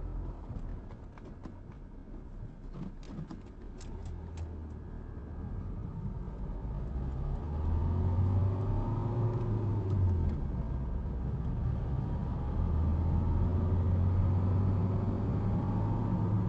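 Car engine and road noise heard from inside the cabin while driving, the car pulling away and speeding up about halfway through, the hum getting louder and then holding steady. A few light clicks in the first seconds.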